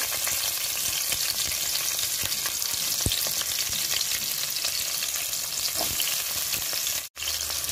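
Chopped onions and green chillies frying in hot oil: a steady sizzling hiss with small crackling pops. It cuts out for an instant near the end.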